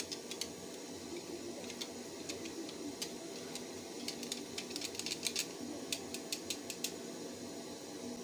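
Light clicks and taps of a kitchen utensil against a bowl as baby porridge is mixed by hand, coming in quick irregular runs, thickest in the second half.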